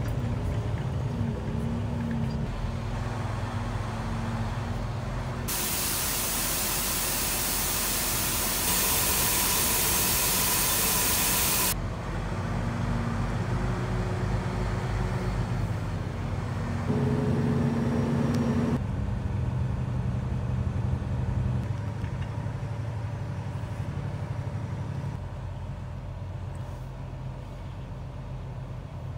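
Semi truck's diesel engine running, heard from inside the cab as the truck creeps along. About five seconds in, a loud steady hiss lasting some six seconds covers it, then the engine note carries on alone and eases off in the last third.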